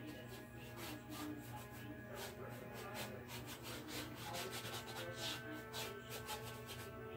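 Paintbrush scrubbing across a canvas in a quick run of short, scratchy strokes.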